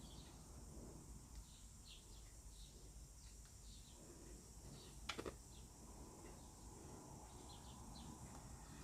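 Near silence with faint, scattered bird chirps and a single soft click a little past the middle.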